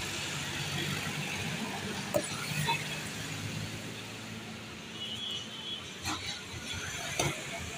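A few light clicks and scrapes from a screwdriver probing and cleaning a cut inside a motorcycle tubeless tyre, over a steady low hum of vehicle engines in the background.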